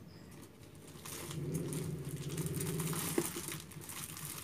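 Packs of paper being picked up and handled, rustling and crinkling, with a sharp click a little after three seconds in.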